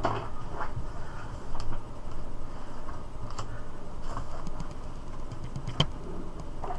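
Light scraping, rustling and scattered clicks of items and packaging being handled on a table during unboxing, with one sharper click about six seconds in, over a steady low hum.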